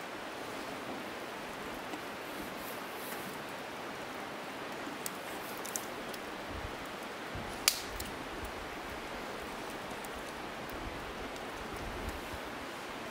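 Steady hiss of outdoor background noise, with a few light clicks and one sharper clink a little over halfway through, as a metal poker stirs and knocks charcoal in a steel mangal grill.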